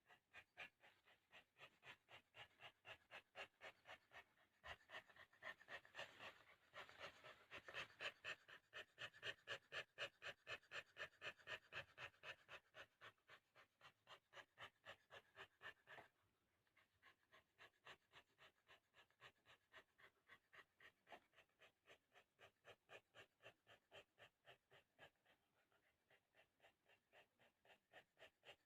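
A dog in labour panting hard through contractions: fast, even breaths, about three a second. The panting is strongest in the first half and softer after about half-way.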